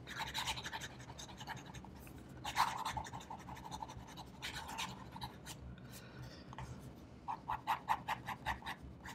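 The 14-karat gold extra-fine nib of a Lamy Dialog 3 fountain pen scratching faintly across notebook paper in fast cursive writing. Near the end it turns into a rapid run of short back-and-forth strokes, about six a second.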